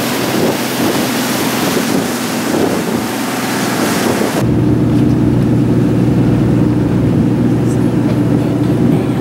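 A fishing boat's engine running steadily under way. For the first four seconds or so it is buried under a loud rushing hiss of wind and water. The hiss cuts off abruptly, leaving the engine's steady low drone.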